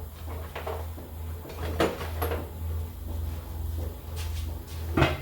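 A few knocks and clatter of metal pieces being handled and set down on a workbench, over a steady low hum.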